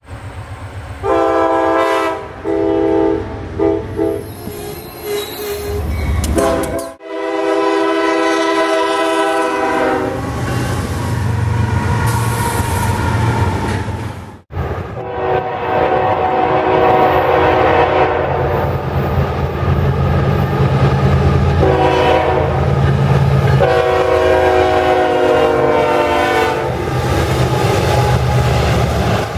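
Diesel locomotive horns blowing a chord, repeated in several spells of short and long blasts, over the low rumble of moving trains. The horns come in a choppy run of short blasts at the start, then in longer sustained blasts further on.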